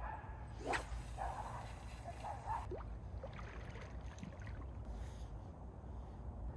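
A carp rod being cast overhead: a single brief swish of the rod about a second in. It is followed by soft water sloshing around the angler's boots as he moves in the shallow margin.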